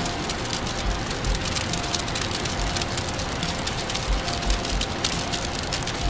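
Steady, dense patter of rain drops on broad wet leaves: many fine taps close together.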